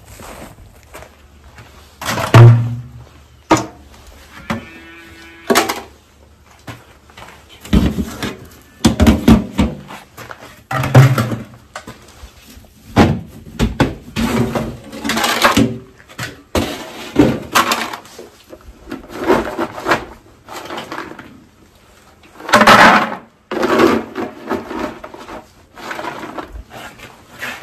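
Galvanized steel trash cans used as feed bins being handled: lids lifted and set down, and feed pellets scooped out, making a long run of irregular clanks, knocks and rattles.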